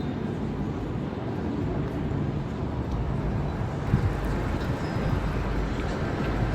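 Busy city street ambience: a steady rumble of passing traffic, with a brief knock about four seconds in.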